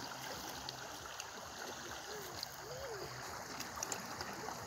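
Shallow river flowing over stones: a steady, even rush of water.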